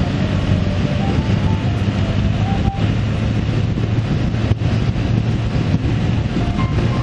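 Steady drone of a vehicle travelling at a constant speed: an even engine hum with road and wind noise, unchanging throughout.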